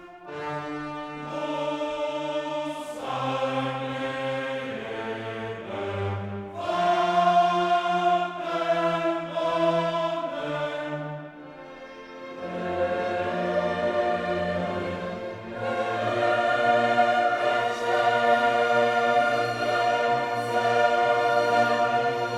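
Classical music: an orchestra with a choir singing sustained chords.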